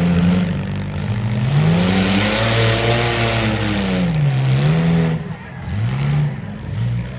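Demolition derby car engines revving up and down as the cars manoeuvre. The revs climb to a peak about two to three seconds in, with a rushing noise over them, drop sharply near five seconds, then pick up again briefly.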